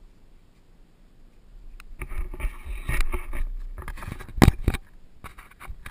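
Rumbling wind noise and handling noise on an action camera held on a pole, starting about two seconds in, with a few sharp bumps, the loudest about halfway through.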